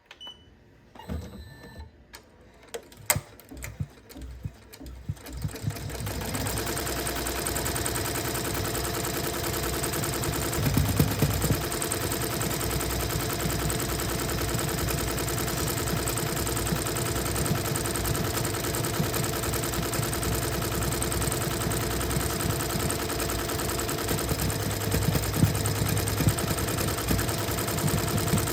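A few separate clicks and knocks, then about six seconds in a sewing machine starts up and runs steadily, stitching without a break.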